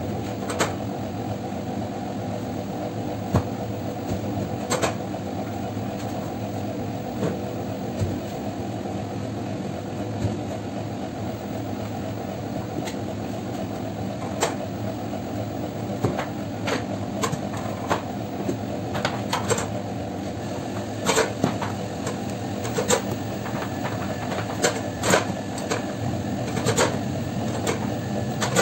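A machine's steady electric hum, with scattered sharp clicks and knocks of tools on a steel worktable. The knocks come more often in the second half, where a bench scraper is cutting dough against the counter.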